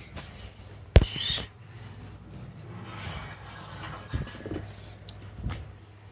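Bird chirping in quick high runs of repeated notes, with a single sharp click about a second in.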